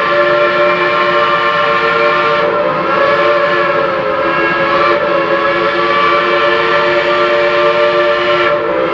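Shay geared steam locomotive's chime whistle blowing a long, steady multi-tone chord, breaking off briefly near the end and sounding again.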